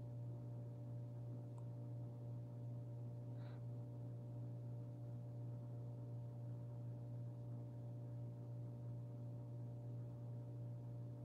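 Quiet room tone dominated by a steady low hum with fainter, higher steady tones above it, and a brief faint sound about three and a half seconds in.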